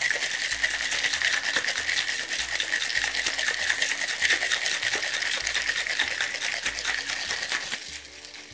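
Crushed ice rattling inside a metal cocktail shaker that is being shaken hard and fast, a dense rapid rattle that stops shortly before the end. The drink is being shaken aggressively to chill it and blend in the cream of coconut.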